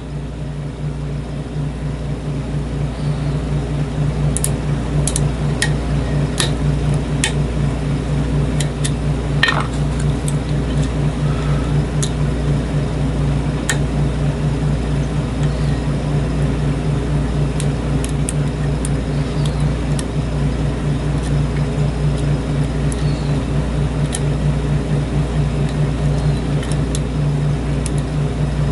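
Steady low mechanical hum, with scattered faint clicks of picking tools working against the pins of a lock cylinder.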